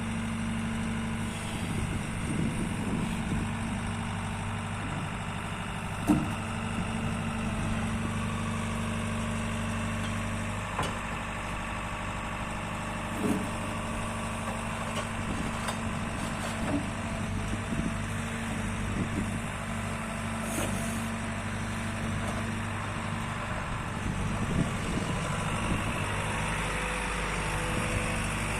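Diesel engine of a JCB JS130 tracked excavator running steadily at a constant speed, with a few short knocks, one sharp one about six seconds in.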